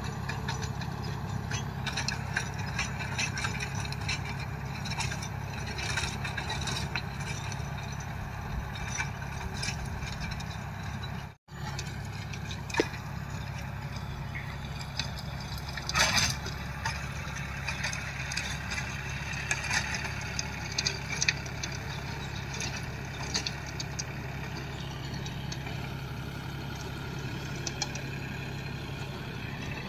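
John Deere 5050 tractor's three-cylinder diesel engine running steadily as it pulls a rotavator through the soil, with scattered clicks and knocks from the working machinery. The sound drops out for an instant a little before halfway.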